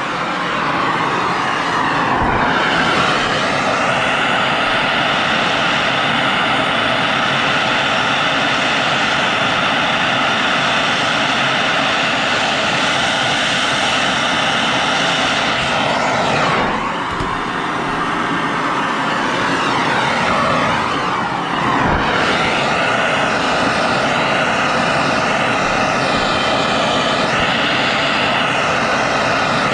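Plumber's torch flame burning with a steady hiss while it heats a copper pipe joint on a brass boiler air separator. The flame sound dips briefly about halfway through and again a few seconds later.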